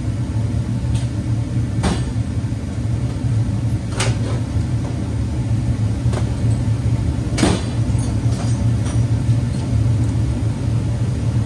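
Steady low mechanical hum in a hot vehicle engine bay, broken by three sharp clicks about two, four and seven and a half seconds in.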